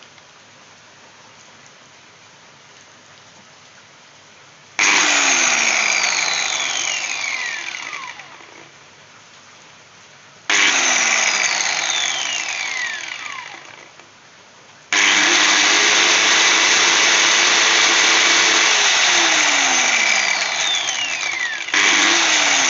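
Handheld electric power tool motor switched on at full speed about five seconds in, then released so it winds down with a falling whine over about three seconds. It is switched on and winds down a second time, then runs steadily for about seven seconds, dips briefly and picks up again near the end.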